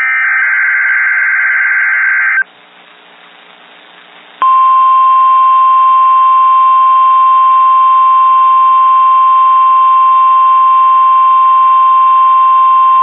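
NOAA Weather Radio emergency-alert test: a harsh, warbling digital SAME header data burst ends about two and a half seconds in. After a two-second pause, the steady 1050 Hz weather radio warning alarm tone sounds and holds for about nine seconds.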